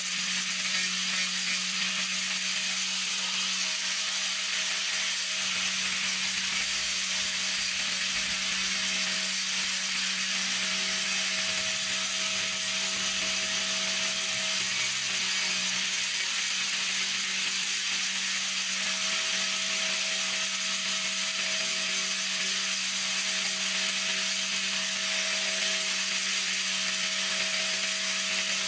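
Electric angle grinder running at a steady speed while a small piece of wood is held against its spinning disc and ground to shape: a constant motor hum and whine under a steady grinding hiss.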